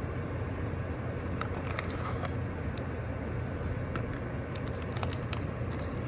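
Small clicks and crinkles of a disposable vape and its plastic packaging being handled, scattered and growing busier towards the end, over a steady low rumble.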